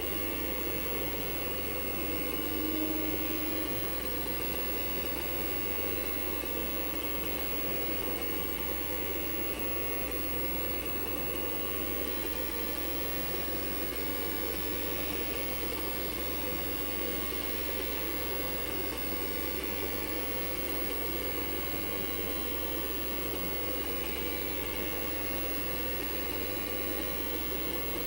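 Vintage IBM PC and expansion unit running with the cover off: a steady whir from the power-supply fans and spinning hard drive, with a short added tone about three seconds in.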